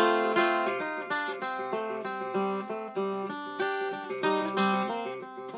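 An old Regal tenor guitar, a four-string acoustic, fingerpicked in an open tuning: a quick run of picked notes with a hard accented strum right at the start.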